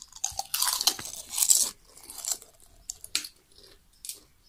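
A boy biting and chewing crisps close to the microphone: dense loud crunching for the first two seconds, then fainter, scattered crunches.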